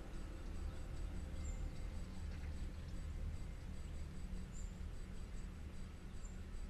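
Countryside ambience: a few short, high bird chirps and a faint regular ticking of insects, about three a second, over a low steady rumble.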